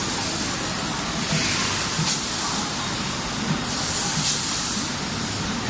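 Automatic pet-food pouch packaging machine running, a steady mechanical hiss with recurring louder hisses of air and light knocks as it cycles.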